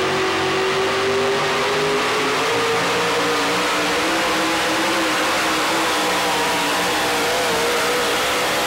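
Modified 4x4 pulling truck's engine held at high revs at full throttle while dragging the weight-transfer sled. The note climbs slightly over the first couple of seconds, then holds steady with a slight waver.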